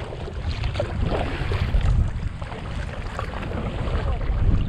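Kayak paddle strokes splashing through choppy water, with wind buffeting the microphone in a steady low rumble.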